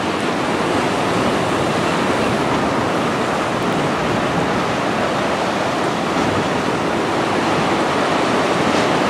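Ocean surf washing over a rocky shore: a steady rush of waves.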